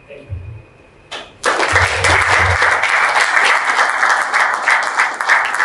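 Audience applauding. The clapping breaks out suddenly about a second and a half in and then holds steady.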